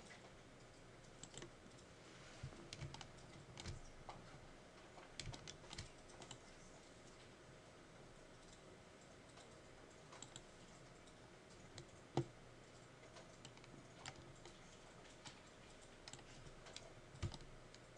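Faint, irregular clicks of a computer keyboard and mouse over near-silent room tone, with one sharper click about twelve seconds in.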